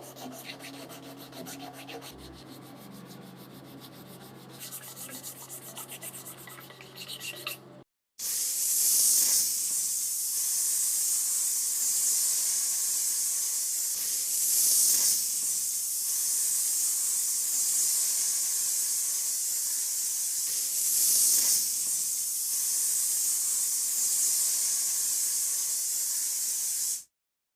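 Sanding during a car body restoration: quick, even back-and-forth rubbing strokes over a low steady hum for about eight seconds. After a cut comes a steady, loud, high hiss that swells about every six seconds.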